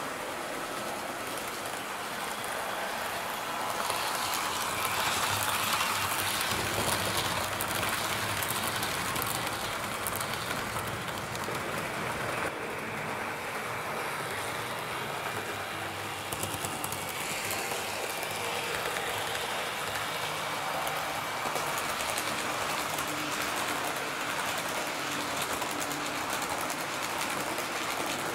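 HO-scale model train running along the layout's track: the Roco NS 1100 electric locomotive and its coaches give off a steady whir and a fine rattle of small wheels on the rails. It grows a little louder about four seconds in and eases off again a few seconds later.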